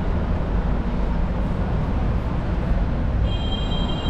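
City street traffic: a steady low rumble of passing vehicles. A high, steady squeal starts about three seconds in.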